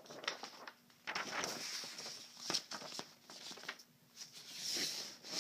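Sheets of paper rustling as they are handled and shuffled, in two stretches, with a few light taps.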